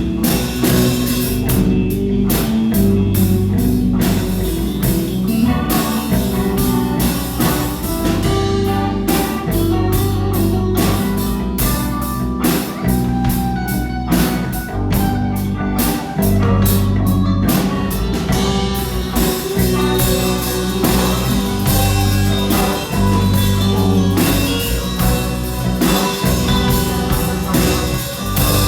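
A live rock band playing loudly: a drum kit keeping a steady beat under guitar and bass.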